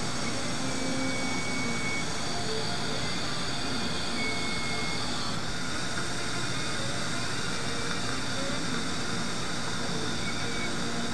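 A steady mechanical whirring hiss with faint high whines, one of which steps slightly lower about five seconds in.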